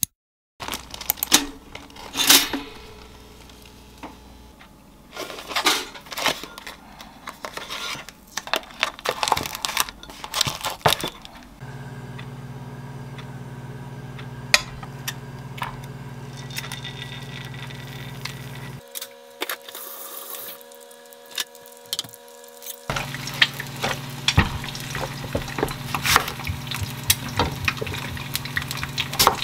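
Home cooking sounds: cookware and utensils clinking and knocking in short, irregular clatters, with a steady low hum through the second half, and a pan of oil heating on a gas stove.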